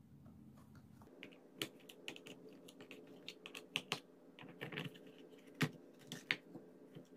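Quiet, irregular clicks and taps of a screwdriver working the screws out of a plastic rechargeable fan's housing.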